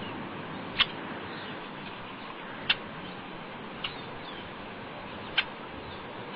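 A bird giving short, sharp chirps: four in all, at uneven intervals, over a steady hiss.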